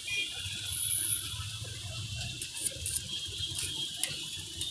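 Steady low rumble of street background with a handful of sharp clicks and taps from utensils and tins as a sandwich is put together on a cutting board, several of them in the second half.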